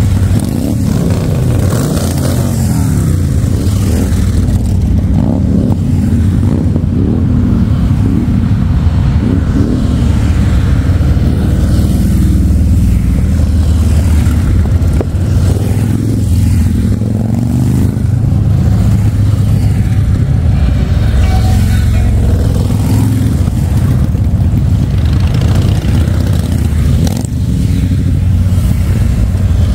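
Harley-Davidson V-twin motorcycle engines running under way, their revs rising and falling.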